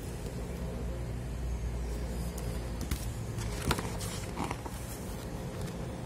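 Steady low background rumble, with a few faint rustles and taps as the pages of a picture book are handled and turned.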